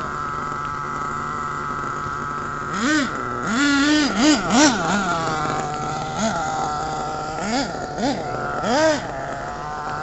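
A radio-controlled monster truck's motor runs steadily while the truck stands still. About three seconds in it starts revving in short bursts, about eight rising-and-falling sweeps, as the truck is driven across the dirt.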